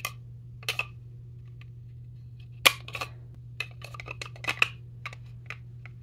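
Victorinox Venture Pro knife being worked into its hard plastic sheath: a string of plastic clicks and short scrapes, the loudest a sharp click about two and a half seconds in, over a steady low hum.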